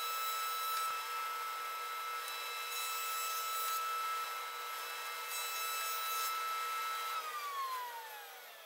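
Delta RC51 20-inch thickness planer running with a steady high whine while a board is fed through it. About seven seconds in the machine is switched off, and the whine falls in pitch as the cutterhead spins down.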